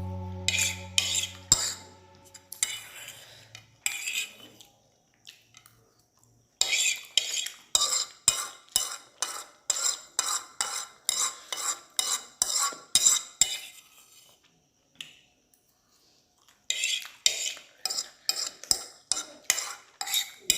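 A spoon scraping and clinking against a plate or bowl while eating, in two runs of quick strokes about two a second with a quiet pause between them. The last note of background music fades out at the start.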